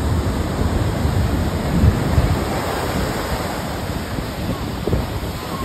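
Heavy ocean surf breaking and washing up the beach, with wind rumbling on the phone's microphone.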